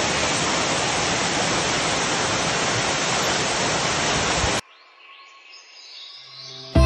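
Steady roar of a waterfall crashing into its pool, which cuts off abruptly about two-thirds of the way through; faint music follows.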